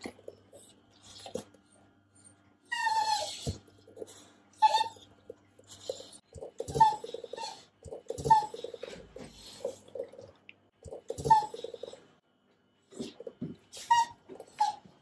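Hungry beagles whining for food: a series of short, high whines, several falling in pitch, with one longer whine about three seconds in. Between them, from about six to twelve seconds in, come bursts of rapid clicking, teeth chattering from a beagle impatient for breakfast.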